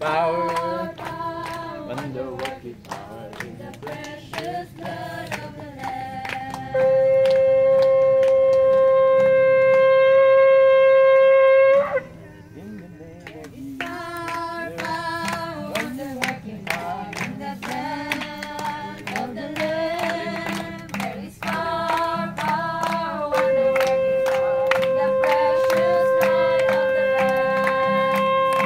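Shofar sounded in two long, steady blasts of about five seconds each. The first comes about seven seconds in and is the loudest sound, and the second starts near the end.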